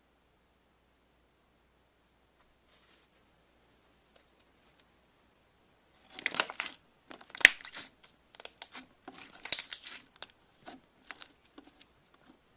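Slime being squeezed and pulled, making irregular crackling, popping sounds that start about halfway through after a quiet stretch.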